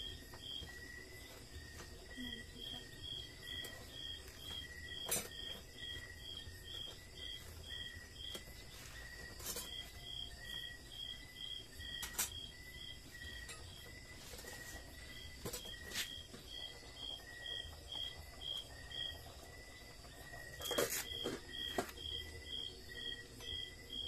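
Crickets chirping in a steady, even rhythm of about three high chirps a second, with a second, fainter chirping line beneath. A few sharp clicks or knocks stand out, the loudest pair about 21 seconds in.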